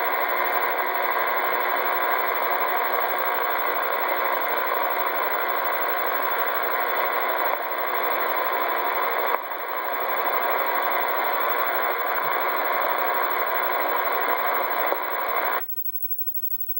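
Steady radio static hiss from a CB radio receiver's speaker with no voice on the channel. It cuts off suddenly near the end.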